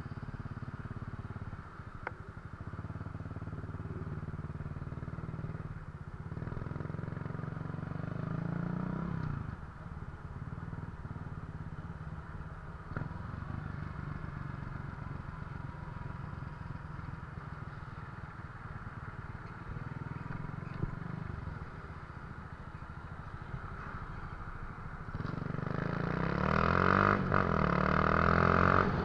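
Small motor scooter's engine running at low speed, its pitch rising and falling with the throttle. Near the end it grows clearly louder as the scooter speeds up, with rushing noise over the engine.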